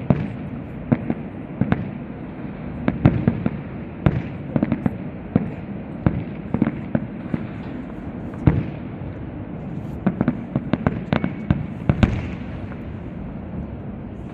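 Castillo fireworks display: a continuous run of sharp bangs and pops at irregular intervals, several a second and some in quick clusters, over a steady background of noise.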